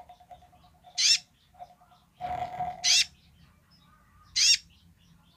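Caged male Van Hasselt's sunbird (kolibri ninja) giving three short, sharp, high calls with a quick wavering pitch, one every second and a half or so. A brief rough noise comes just before the second call.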